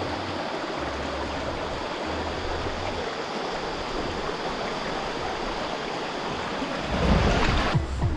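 River water flowing in a steady rush. About seven seconds in, a louder low rumble cuts across it for under a second.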